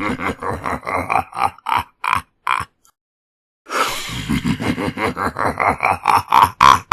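Two deep, evil-sounding laughs with about a second's pause between them. Each is a quick run of 'ha' pulses that climbs in pitch, from a low growl to a higher cackle.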